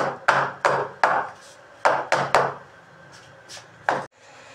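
Square metal cake pan full of batter being rapped down on a marble countertop to knock the air bubbles out of the batter: about six sharp knocks in the first two and a half seconds, then a few lighter ones.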